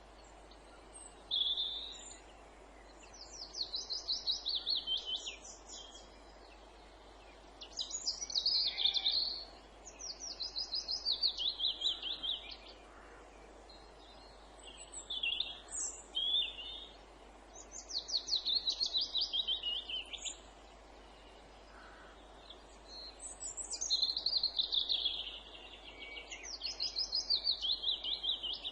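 Songbirds singing in woodland: short, fast trilled phrases that fall in pitch, each about two seconds long, repeated every few seconds over a faint steady background hiss.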